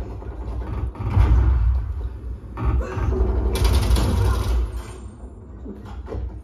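Call of Duty game audio playing through an Onn Blast 5.1.2 Dolby Atmos soundbar and subwoofer, heard in the room: in-game mechanical sounds over a heavy low rumble, with a bright hiss about three and a half seconds in, easing off near the end.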